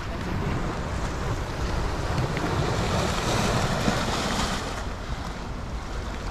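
Sea waves washing against a rocky shore, with wind buffeting the microphone. The surge swells about two seconds in and eases off near the end.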